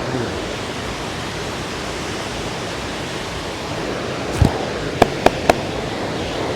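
Steady rush of the Parvati River flowing. About four seconds in there is a dull thump, then three quick sharp clicks or snaps from the massage.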